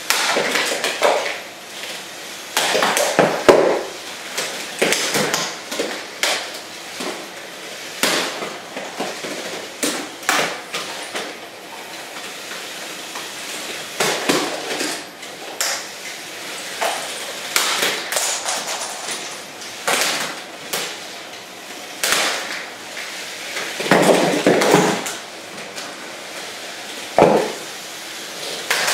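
Lego combat robots with spinning weapons hitting each other again and again: sharp plastic clacks and clatters in irregular bursts, heaviest near the start, about three seconds in and near the end, with Lego pieces knocked loose.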